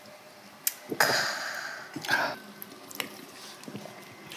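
A person's loud, breathy exhale after knocking back a shot of liquor, fading over most of a second, followed shortly by a brief voiced 'ah'. A light click, like a glass set on the table, comes just before.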